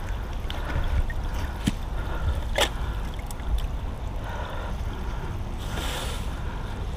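Wind rumbling on the microphone, with a few sharp knocks and a faint trickle of water as a find is handled at the water's edge.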